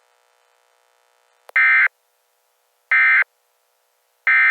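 Three short bursts of EAS SAME digital data tones, a buzzy warbling screech around 2 kHz, about 1.4 s apart: the end-of-message code that closes an Emergency Alert System broadcast.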